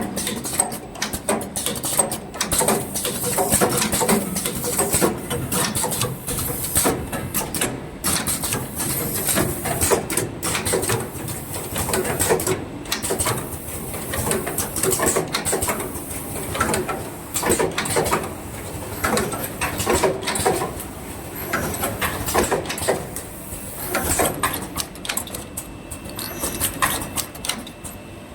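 Automatic plug and power-cord production machine running: a continuous, irregular clatter of mechanical clicks and knocks with patches of high hissing.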